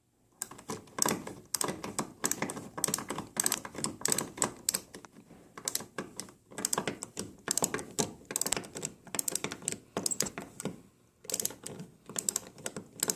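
A thread tap being cranked by hand through a drilled hole in the thin metal backing plate of a steel door jamb: a rapid, uneven run of sharp clicks, with two short breaks about five and eleven seconds in.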